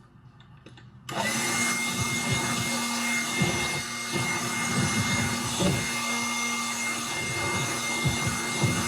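Leaf blower switched on about a second in and running steadily with a high whine and uneven gusts of air, blowing accumulated dust out of a disassembled electric space heater.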